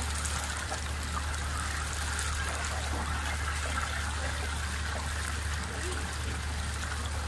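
Whole artichokes deep-frying in a wide tray of boiling oil: a steady bubbling sizzle, with a steady low hum underneath.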